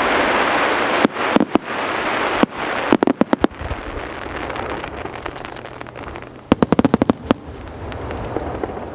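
Aerial fireworks going off: a dense crackling hiss at first, then sharp bangs, with two quick volleys of reports about three seconds in and again near seven seconds.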